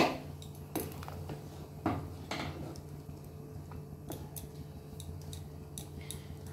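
Wooden spatula stirring rice and broth in a metal pot, with scattered knocks and scrapes against the pot; the loudest knock comes right at the start. A steady low hum runs underneath.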